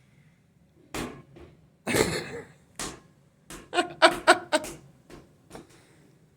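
A ball bouncing with a few separate thumps on a hard floor, followed by a quick run of short pitched vocal sounds.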